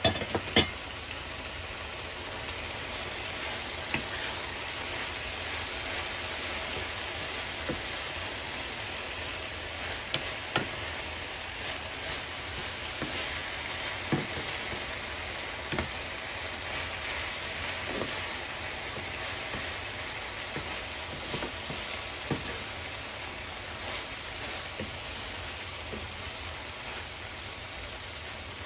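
Sliced bitter melon and fried milkfish sizzling steadily in a frying pan while a wooden spoon stirs them, with occasional sharp knocks of the spoon against the pan, the loudest about half a second in.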